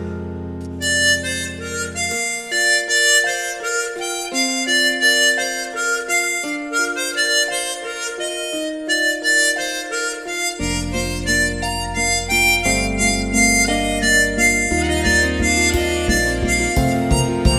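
Harmonica playing a slow melody note by note. A low sustained accompaniment drops out about two seconds in and comes back about ten seconds in, growing fuller near the end.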